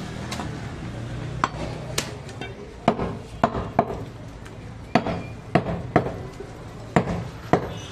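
Butcher's cleaver chopping goat meat on a wooden chopping block: about ten sharp knocks at an irregular pace.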